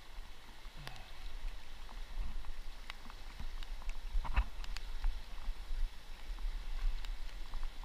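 River water running with a steady low rumble, and scattered light ticks and taps at irregular times. One louder knock comes about four and a half seconds in.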